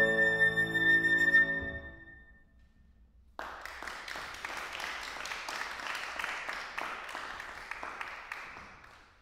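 Flute and grand piano end on a held chord that dies away over about two seconds. After a second of silence an audience bursts into applause, which fades away near the end.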